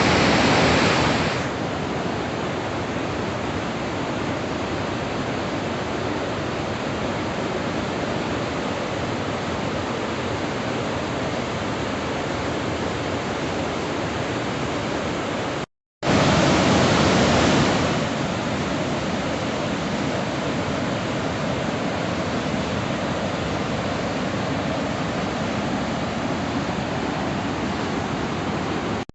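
Waterfall, a steady rush of falling water. It cuts out for a moment about halfway and comes back, each stretch starting louder for a second or two.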